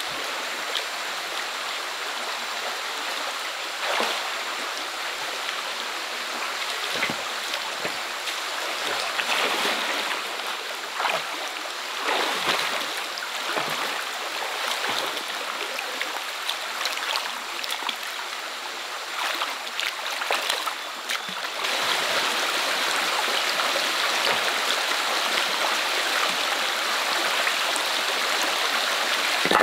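Stream water running: a steady rushing hiss with scattered short, sharper noises over it. About two-thirds of the way through it steps up to a louder, more even rush.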